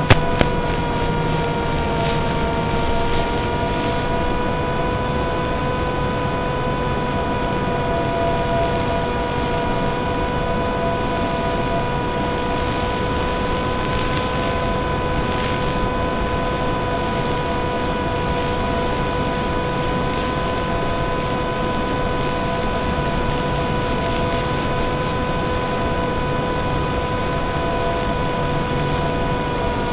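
Steady hiss with a constant electrical whine, the audio of an FPV video link recorded by a low-quality DVR. A single sharp click comes just after the start.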